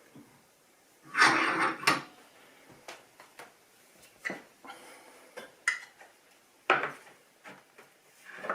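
Small objects handled on a hard work surface: a loud scraping rustle about a second in, then a scattered series of light clicks and knocks as things are picked up and set down.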